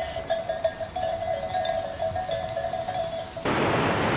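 A livestock bell clanking again and again at one ringing pitch. About three and a half seconds in, it cuts abruptly to the loud, steady rush of river water.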